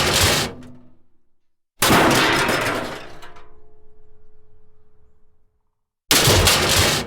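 Metal crash sound effects, three in a row. The first, already under way, dies out within about a second. A second crash about two seconds in fades slowly, with a metallic ringing tone that lasts a few seconds. A third crash hits about a second before the end.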